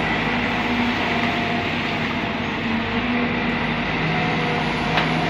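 Sumitomo SH210 hydraulic excavator's diesel engine running steadily under load as the boom and bucket work soil, with one sharp click about five seconds in.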